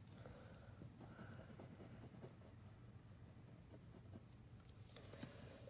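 Faint scratching of a pen or pencil drawing short strokes on paper.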